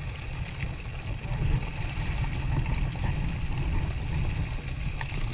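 Low, gusting wind rumble on the microphone out on open water, with a few faint clicks and knocks from fish and net being handled.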